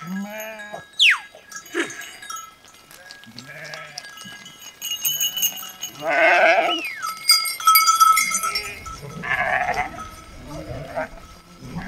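A large flock of sheep bleating: many overlapping calls at different pitches, some long and wavering, loudest past the middle.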